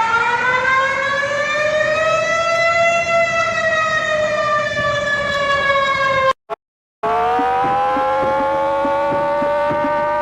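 Warning siren wailing: one long tone that rises, then slowly sinks, and cuts off about six seconds in. After a short silence a second siren winds up and holds a steady pitch, with faint regular ticking underneath.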